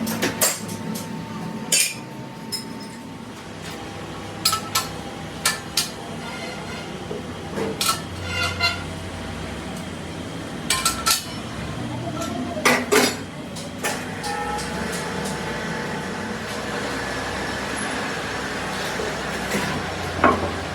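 Irregular metallic clanks and clinks of steel tools and parts being handled, a few of them ringing briefly, over a steady low hum.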